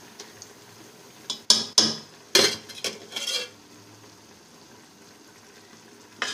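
A metal spoon knocking and scraping against a cooking pot, half a dozen sharp clinks about a second and a half in, with a faint steady hiss before and after.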